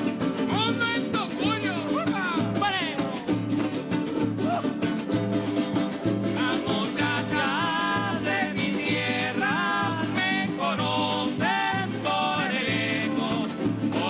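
Venezuelan folk ensemble playing live: strummed guitars and a small hand drum keep a steady beat of about two pulses a second, with a melody line gliding above it.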